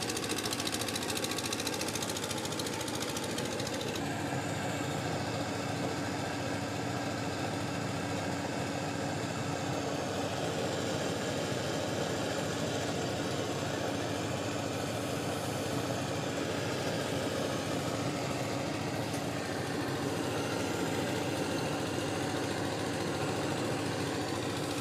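A machine running steadily with a fast, even rattle; a steady hum joins it about four seconds in.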